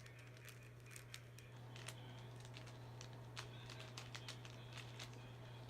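Rubik's cube being turned by hand: faint, quick, irregular plastic clicks as the layers snap round, over a steady low hum.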